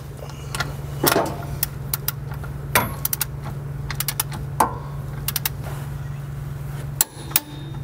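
A torque wrench ratcheting on the primary clutch bolt of a UTV's CVT as the bolt is run down toward 95 ft-lb, giving irregular sharp metallic clicks and clinks. A steady low hum runs underneath.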